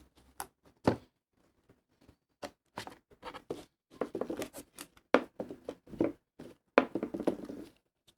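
Packaging being handled by hand, with plastic wrapping and cardboard making irregular taps, clicks and crinkling rustles. They are sparse at first, grow busier in the second half, and stop just before the end.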